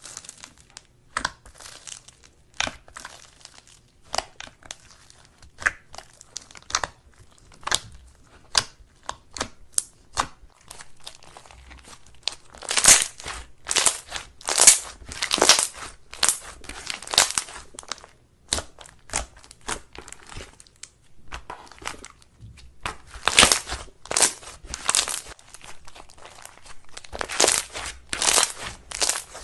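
Slime being squeezed and pressed by hand, giving irregular sharp crackling pops and clicks that come in louder runs around the middle and again near the end.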